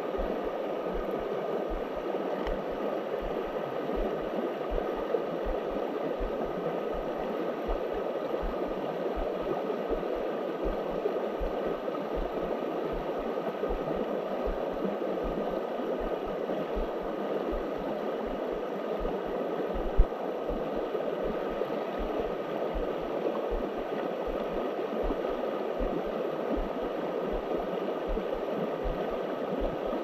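Creek water running in a steady, even rush, with one sharp click about two-thirds of the way through.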